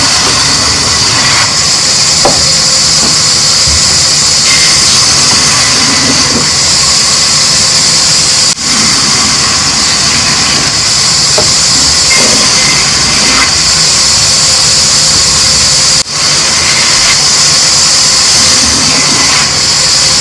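A machine running loudly and steadily, with a hissing noise in the upper range. The sound drops out briefly twice, about 8 and 16 seconds in.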